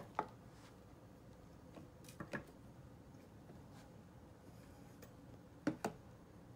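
Three pairs of light clicks, the two clicks in each pair about a fifth of a second apart, over faint room tone.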